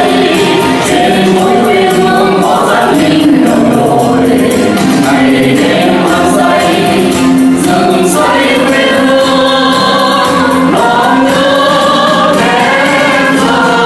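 Mixed men's and women's vocal group singing a song together into microphones over music, holding long notes.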